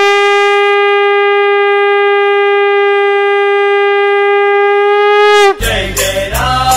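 Conch shell (shankh) blown in one long steady note that dips in pitch and breaks off after about five and a half seconds; then the music of the next bhajan comes in.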